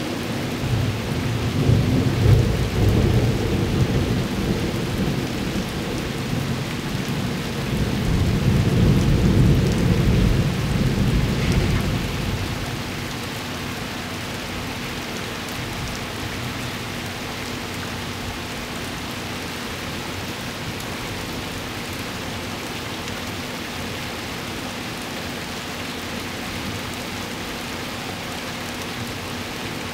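Thunder rumbling low, swelling twice over roughly the first twelve seconds and then dying away, over a steady hiss of rain.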